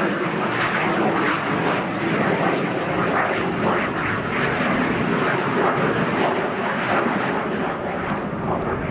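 Eurofighter Typhoon jet engines running, a loud, steady rushing noise that holds an even level throughout.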